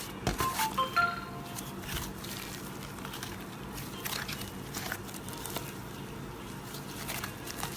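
Slime being squeezed and pressed by hand: a run of sticky clicks and crackling pops, with a cluster of louder ones in the first second.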